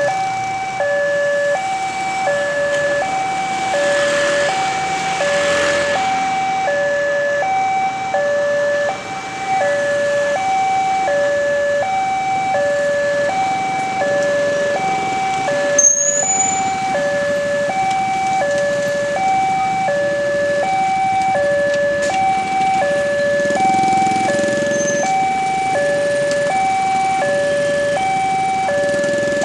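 Railway level-crossing warning alarm ringing: an electronic chime alternating steadily between a lower and a higher tone, about one pair a second. It signals that a train is approaching and the crossing barriers are down.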